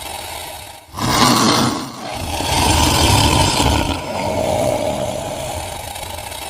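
Monster roar sound effect: a run of rough, noisy roars, with a short loud one about a second in and a longer, louder one from about two seconds in.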